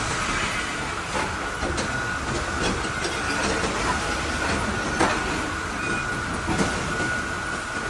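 Log-processing machinery of a plywood line running, with a steady high whine and irregular knocks and clatter of wood against metal.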